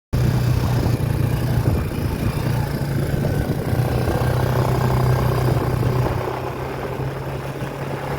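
Large diesel engine of farm machinery running at a steady speed, a little quieter from about six seconds in.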